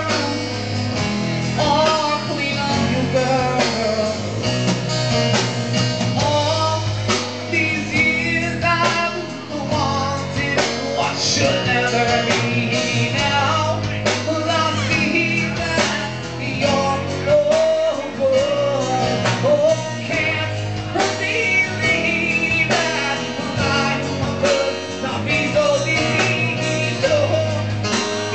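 Live rock band playing a song: guitar lines over bass and drums with a steady beat, with singing.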